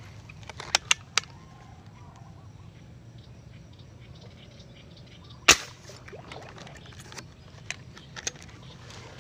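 A single sharp, loud shot about five and a half seconds in from a tiksay fish-shooting gun fired at a fish in the water. It comes after a few quick handling clicks, and more light clicks follow.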